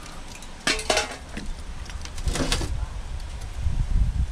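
Metal hand tools clinking against each other and against a perforated aluminum pan as they are sorted into it, in two short clusters of clinks about a second in and again past the two-second mark.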